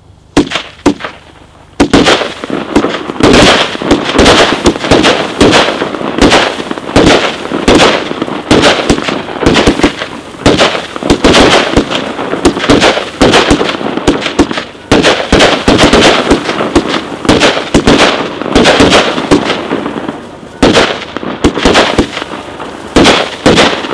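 Consumer firework batteries firing: a few sharp bangs about half a second in, then from about two seconds in a dense, near-continuous string of launch thumps and bursting shells.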